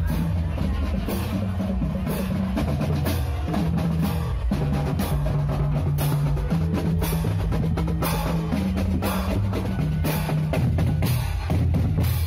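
Marching drum band playing on the move: snare, tenor and Pearl bass drums beating a steady rhythm, with a low held bass line underneath that changes note every second or two.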